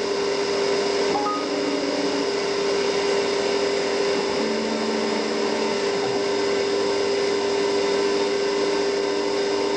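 Small CNC milling machine cutting with a small end mill on very light passes at a feed slowed to 10%: a steady spindle whine over a wide hiss. Fainter extra tones come and go twice, about a second in and again around the middle.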